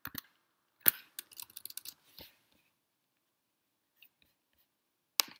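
Computer keyboard keystrokes and clicks: a sharp click about a second in, a quick run of keystrokes just after, then a pause and one more sharp click near the end.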